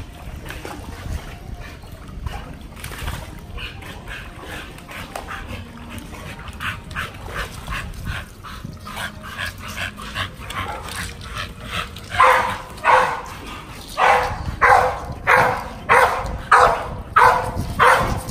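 Dog barking repeatedly: softer short yelps through the middle, then loud barks in a steady run of about two a second from about two-thirds of the way in.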